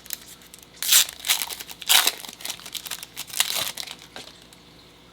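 Trading-card packaging being opened by hand: plastic wrapping crinkling and tearing in several loud bursts that die away about four seconds in.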